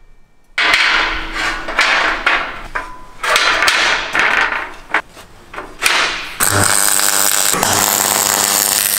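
Knocks and scrapes of aluminium angle being handled and laid out for a frame. Then, from about six seconds in, a MIG welder's arc hisses and crackles steadily as it welds the aluminium angle.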